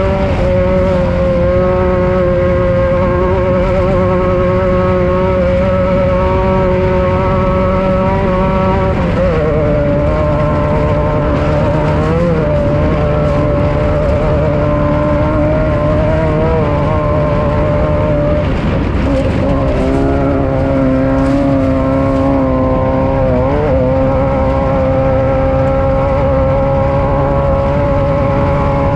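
Off-road race vehicle's engine running steadily and loud, its pitch dipping and recovering briefly several times.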